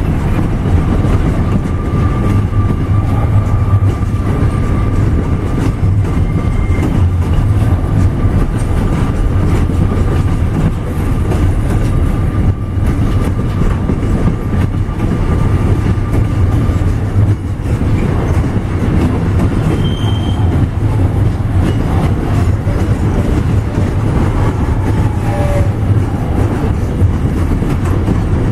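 Loaded container flat wagons of a long freight train rolling past, a loud, steady rumble of wheels on rail. A thin, steady wheel squeal sits over the rumble and fades out a little past halfway.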